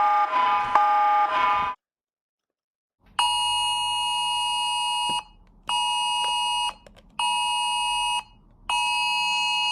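Emergency mobile alert attention tone, a steady two-pitch buzz in the standard phone alert cadence. It starts about three seconds in with a two-second blast, then two one-second blasts and another two-second blast, each separated by half-second gaps. Before it, a different repeating tone sequence cuts off into about a second of silence.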